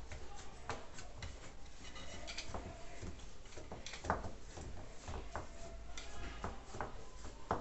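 Hands pressing and spreading soft pastry dough into a round baking pan: soft rubbing with scattered light taps and knocks of fingers against the pan.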